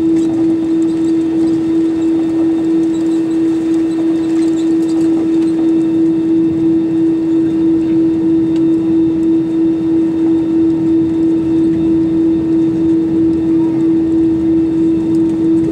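Steady cabin drone inside an Airbus A320-200 on the ground after landing, with one strong constant tone over an even rumble.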